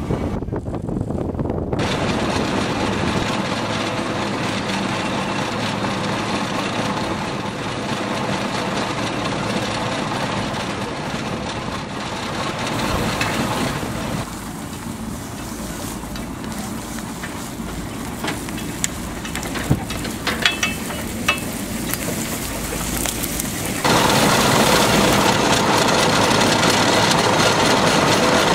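A steam ploughing outfit at work: steady noise as the wire rope hauls the plough through the soil, a quieter stretch with a few sharp clicks and knocks, then from about three-quarters of the way through a louder, steady mechanical running close to a Fowler ploughing engine's winding drum.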